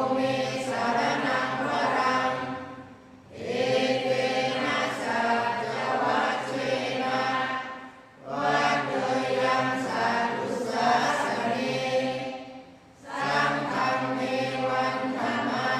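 A group of voices chanting Pali verses together in a steady sung monotone, the Buddhist evening chanting service. The chant comes in long phrases of about four to five seconds, with a short pause for breath between them.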